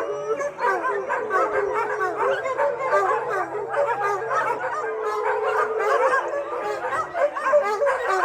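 A large crowd of shelter dogs howling together in a continuous chorus, many overlapping howls at different pitches with some barking mixed in, set off by a thunderstorm.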